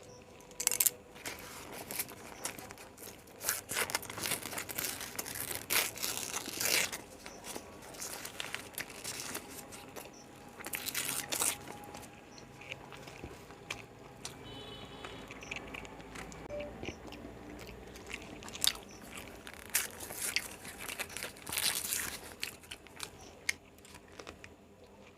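A person biting and chewing egg rolls close to the microphone: irregular bursts of crunching and chewing, some bites louder than others.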